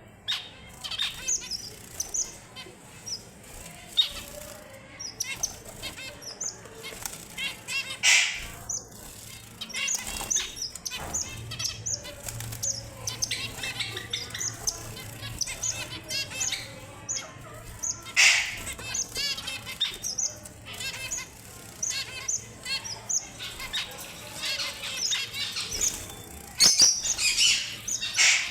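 Red avadavats (strawberry finches) calling in a run of short, high chirps and twitters, with wings fluttering now and then and louder flurries several times.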